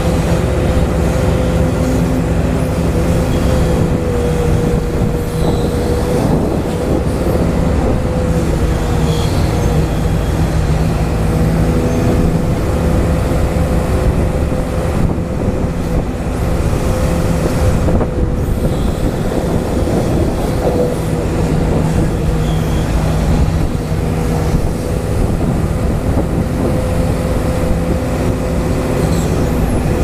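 Huina 580 RC hydraulic excavator's pump running with a steady high whine over a lower hum, wavering slightly in pitch now and then as the boom and bucket are worked.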